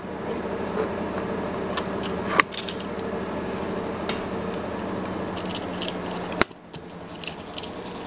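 Plastic and metal parts of a telescoping boom microphone stand being handled and fitted together: scattered small clicks and ticks, with two sharper knocks, about two and a half and six and a half seconds in.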